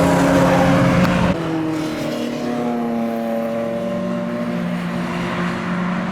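BMW E46 M3's S54 naturally aspirated straight-six running hard at full throttle with loud induction noise, then the throttle closes about a second in. The engine note drops suddenly, falls a little further, and settles into a lower steady note.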